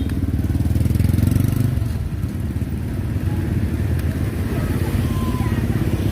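A small engine running steadily, with a fast, even low throb.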